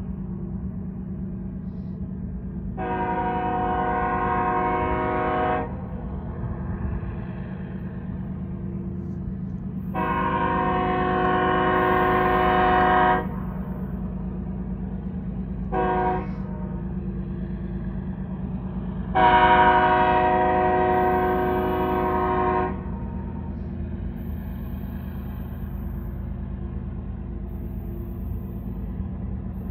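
The Nathan K5HL chime horn on BNSF ES44AC locomotive 3304 sounding the grade-crossing signal: long, long, short, long, the last blast starting loudest. A steady low hum runs underneath.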